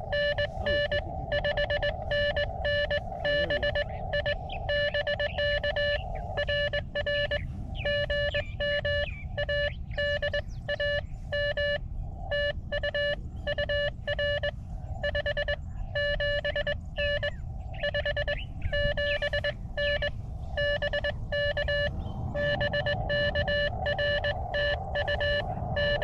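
Morse code (CW) on the 40-metre band from a portable ham radio transceiver's speaker: a tone near 600 Hz keyed on and off in quick dots and dashes over steady band hiss. At times a second signal at a slightly higher pitch keys over it, as when several stations call one operator in a pile-up.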